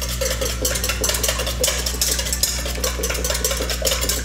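A wire whisk lightly beating eggs in a stainless steel bowl to break them up: a quick, continuous run of metal clinks and scrapes against the bowl. A steady low hum runs underneath.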